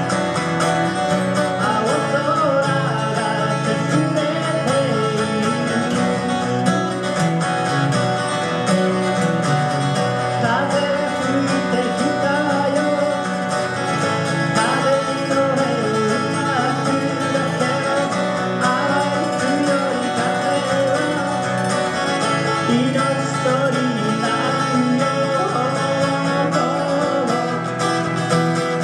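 Live acoustic guitar playing a song, with a voice singing over it.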